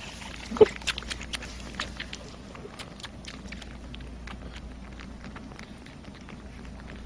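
Three kittens suckling from milk feeding bottles: many small, quick sucking clicks at an irregular pace, with one short squeak about half a second in.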